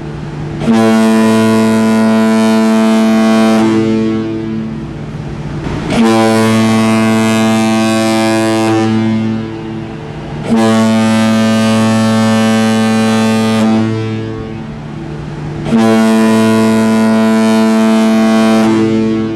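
Ship's horn sounding four long, deep blasts, each held about three seconds and dying away before the next starts.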